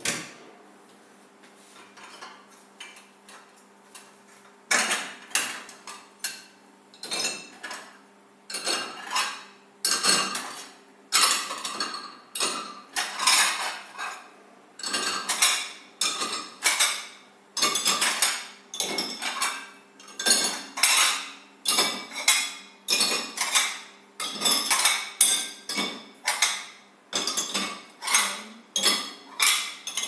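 Plates being set one at a time into the lower rack of a Bosch dishwasher, clattering against each other and the wire rack about once a second. A single knock at the start, then a few quieter seconds before the steady run of clatters begins.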